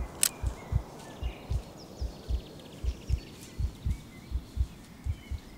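Low, even thumping pulse, about four beats a second, with one sharp click just after the start and faint bird chirps.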